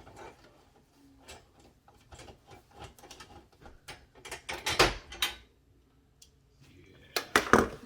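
Irregular small clicks and knocks of hands handling oven door handle parts and screws, with louder clattering knocks about five seconds in and again near the end.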